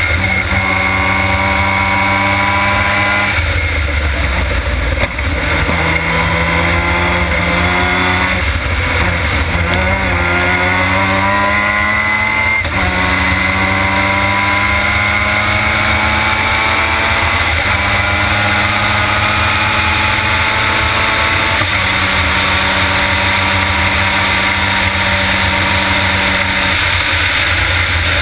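Formula Mazda race car's two-rotor Mazda rotary engine at racing speed, heard from an onboard camera. The note holds steady for several seconds at a time, with a few brief dips and a stretch of climbing revs about a third of the way in. Steady wind and road rumble lie underneath.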